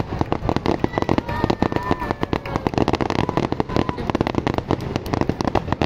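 Fireworks display: a dense, continuous crackle of many sharp pops and bangs a second from bursting shells.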